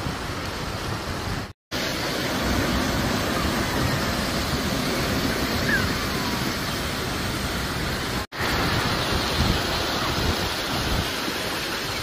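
Water rushing down small sandstone cascades, a steady noise of running water with some wind on the microphone. It drops out for an instant twice, early on and about two-thirds of the way through, at edits.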